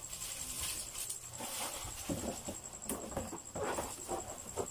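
Plastic wrapping and bubble wrap rustling and crinkling in irregular bursts as a wrapped package is handled and lifted out of a cardboard box.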